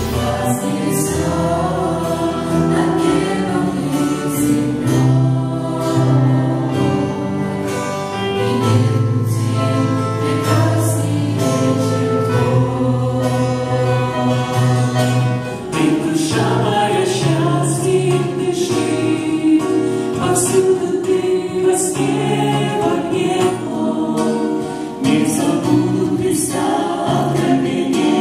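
Mixed group of young women and men singing a Christian worship song together into microphones, accompanied by acoustic guitar and keyboard.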